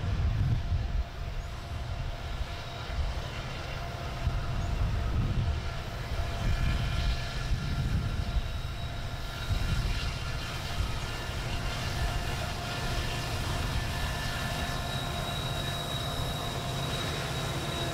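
BNSF coal train rolling past, a continuous low rumble of cars on the rails, with wind gusting on the microphone.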